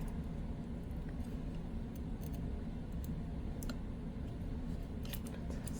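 A few scattered light clicks and taps of small computer parts being handled and slid during disassembly, over a steady low hum.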